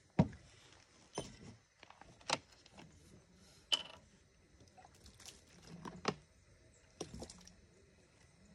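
Scattered light knocks and taps, irregular and about one a second, with a brief high chirp a little under four seconds in.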